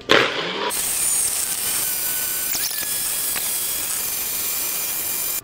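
Nutribullet blender motor running at full speed, whipping milk, ice, protein powder and xanthan gum into a thick fluff: a steady whir with a high whine, changing in tone about a second in as the mix catches, then cutting off abruptly.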